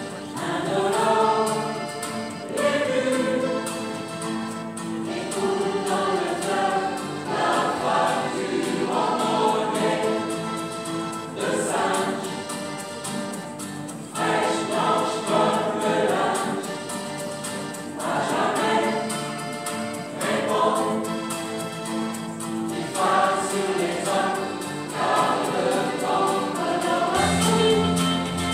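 Mixed choir of men's and women's voices singing in harmony, in sung phrases of a couple of seconds each. A low held note comes in near the end.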